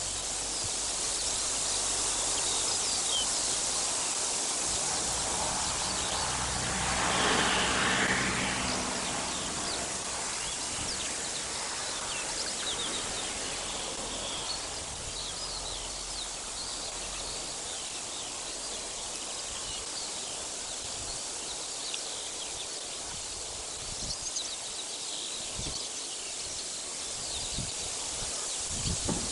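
Outdoor ambience: a steady rush of wind through leaves, with many short, faint chirps of small birds. About a quarter of the way in, a louder swell of noise with a low hum lasts a couple of seconds.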